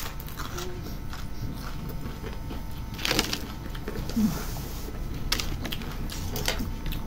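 Quiet eating sounds from rolled lahmacun being chewed, with a few short soft rustles and clicks, the loudest about three seconds in.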